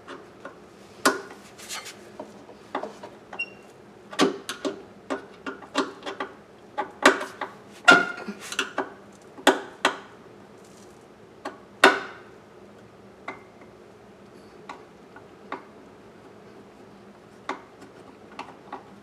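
Irregular clicks, knocks and light clatter of hard objects being handled, busiest in the first dozen seconds and sparser after, over a faint steady hum.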